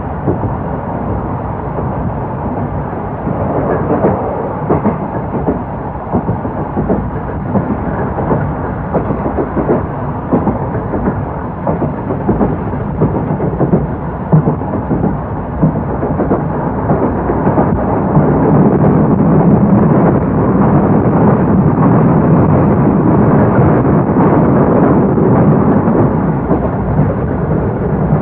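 Old-type passenger coaches hauled by an EF70 electric locomotive, running along the line: a steady rumble with fast, irregular clatter from the wheels and running gear. It grows louder about two-thirds of the way through and stays louder.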